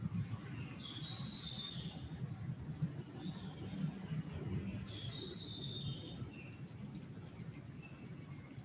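Cricket chirping in an even, rapid series of high pulses, about five a second, that stops about four seconds in. Short bird calls come about a second in and again near five seconds.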